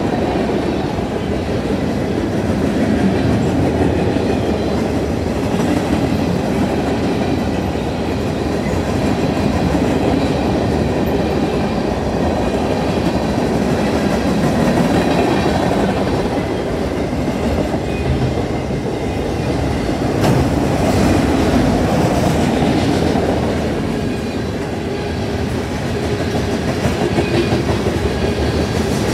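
Freight cars rolling steadily past at a grade crossing: a continuous rumble of steel wheels on rail with a clickety-clack of wheels over the rail joints and crossing.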